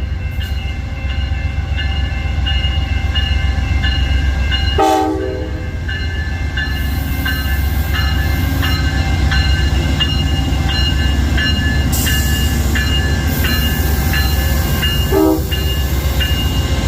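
Amtrak passenger train's diesel locomotive running past with a steady low rumble. Its air horn gives a short blast about five seconds in and a brief toot near the end. A high ringing tick repeats about twice a second underneath.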